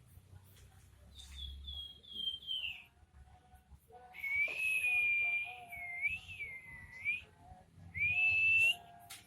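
A pelamboyan songbird whistling clear, pure notes. First comes a quick run of short notes. A long drawn-out whistle follows that dips twice in pitch, and near the end there is a shorter whistle that rises.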